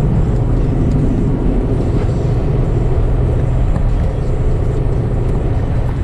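Car driving on the road, heard from inside the cabin: a steady low rumble of tyre and engine noise.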